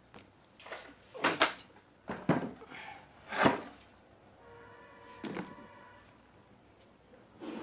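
A few knocks and clunks of an old radio set being handled and moved, with a short humming tone between about four and six seconds in.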